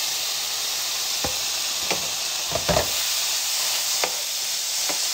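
Chicken pieces sizzling steadily as they fry in a skillet, with a few sharp knocks of a spatula against the pan while they are stirred; the loudest clatter comes about two and a half seconds in.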